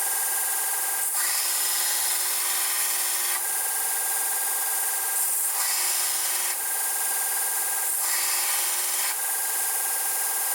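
Power tool running with a steady whine over a hiss, its tone shifting every second or two as it cuts into the steel handle of a Remington 700 rifle bolt.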